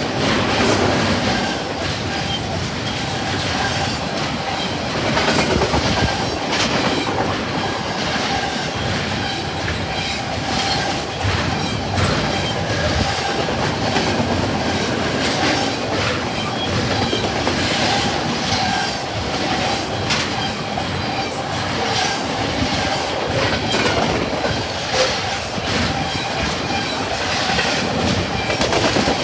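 A long double-stack container freight train rolling past at speed: a steady rumble of wheels on rail, many sharp clacks as the wheels cross rail joints, and a steady high-pitched squeal from the wheels.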